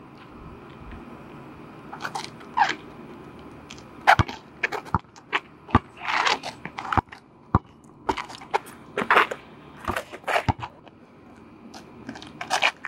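Basketball dribbled on an asphalt court, its bounces coming as sharp thuds at irregular intervals. Between the bounces, sneakers scuff and scrape on the asphalt.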